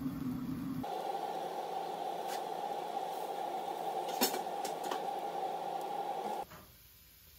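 Kitchen cooking sounds: a steady noise with a few light clinks of utensils or dishes, which cuts off suddenly near the end.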